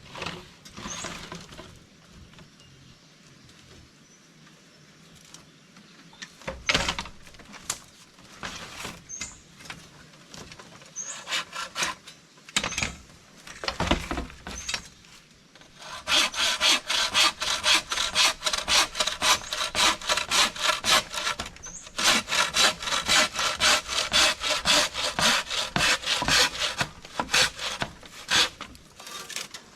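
A hand saw cutting through wood, first with scattered knocks and scrapes, then from about halfway in a fast, steady run of back-and-forth sawing strokes with one short pause.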